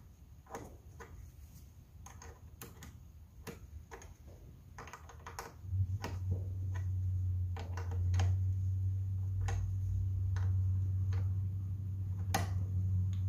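Light irregular metal clicks and ticks from a wrench tightening the nut on a car battery's positive terminal clamp. About six seconds in, a steady low hum starts and stays, louder than the clicks.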